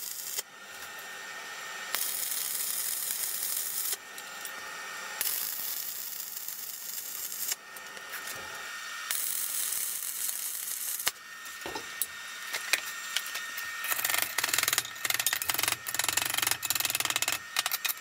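Stick (arc) welding on steel: the electrode's arc crackles and hisses in several separate runs of a couple of seconds each, with quieter breaks between them and a denser crackling over the last few seconds. These are short reinforcing beads laid along the inside joints of a steel tool holder.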